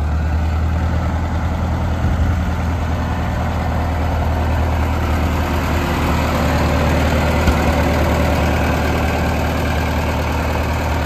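Massey-Harris 44 tractor engine running steadily at low revs as the tractor is driven slowly, a constant low hum.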